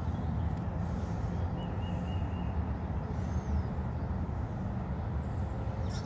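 Steady low outdoor rumble, with a few faint, short high bird calls in a quick series about a second and a half in.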